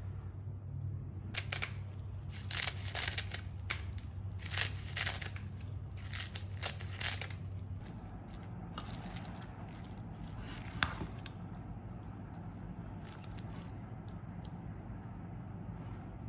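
Kitchen food-handling sounds: a quick run of sharp clicks and crinkles as spinach leaves and a plastic squeeze bottle of sesame dressing are handled, over a low steady hum. This gives way to softer scraping as a metal spoon stirs bibimbap in a ceramic bowl, with one sharper click partway through.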